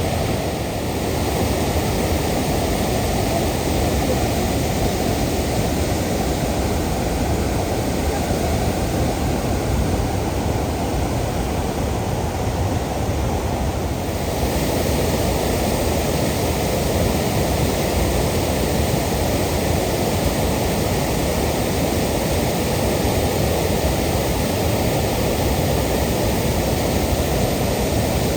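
Waterfall's falling water rushing steadily, with no break, a little brighter and hissier from about halfway through.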